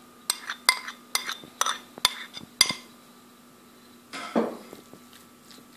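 Metal spoon clinking against a stainless-steel bowl and a ceramic bowl as minced mutton is scraped out: about seven sharp, ringing taps over the first three seconds, then a softer scrape about four seconds in.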